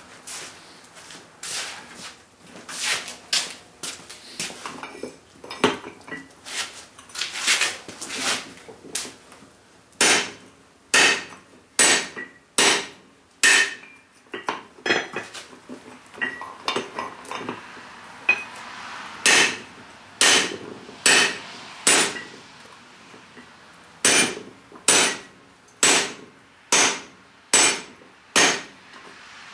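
Hand hammer striking a hot steel hammer head over a 3/8-inch round fullering tool on an anvil, working a groove in it. Quicker, lighter blows come first, then louder, evenly spaced blows just under one a second, each ringing briefly, with two short pauses.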